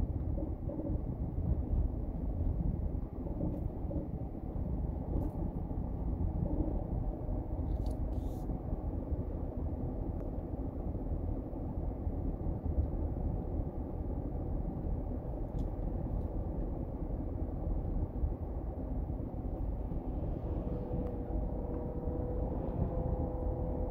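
Steady road and engine noise heard from inside a moving car: a low rumble with a few faint clicks. A faint steady hum comes in near the end.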